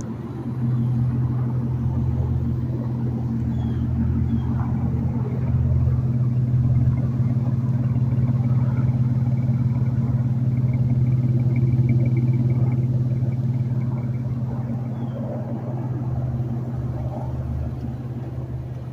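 A 3.5 L V6 Dodge Charger idling steadily just after a cold start, its exhaust note coming through Flowmaster mufflers with a K&N cold air intake fitted. It has a deep, even rumble that the owner likens to a V8 with a mid-muffler delete.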